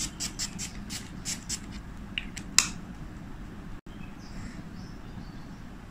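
Pump-spray face mist bottle being spritzed: a rapid run of about ten short hissing sprays over the first two and a half seconds, then it stops.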